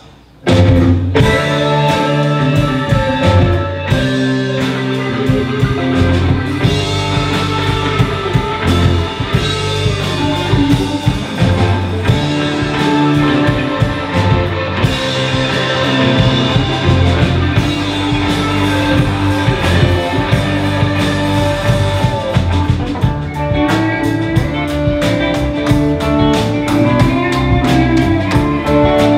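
A live rock band with electric guitars and a drum kit playing, kicking in suddenly about half a second in and going on steadily.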